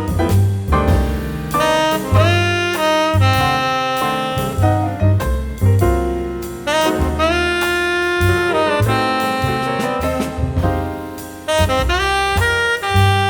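Jazz background music with a horn lead playing held notes over bass, piano and drums.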